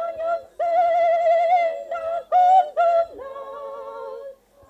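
A high voice singing long held notes with a wavering vibrato, in short phrases, growing softer toward the end.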